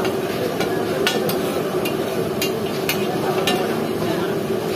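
Slotted metal spatula scraping and clinking on a large flat griddle, a sharp clack every half second or so in the first three and a half seconds, over the steady sizzle of meat frying in oil.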